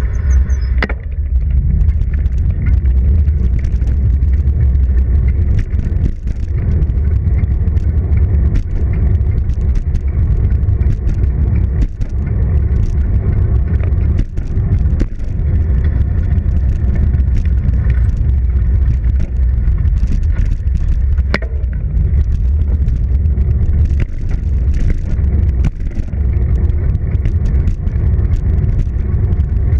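Wind noise buffeting the microphone of a bicycle-mounted action camera while riding over asphalt, with frequent small knocks and rattles from bumps in the pavement.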